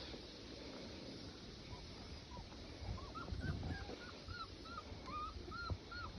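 Puppies whimpering softly: a string of short, high squeaky whines, about three a second, starting about two seconds in.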